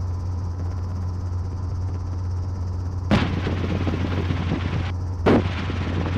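Safari 500 helicopter's engine and rotor droning steadily in cruising flight, heard from the open cockpit, with two sharp pops about two seconds apart.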